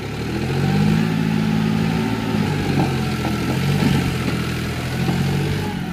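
John Deere tractor's diesel engine pulling hard under load as the tractor works its wheels through deep mud, growing louder about half a second in and holding a steady note.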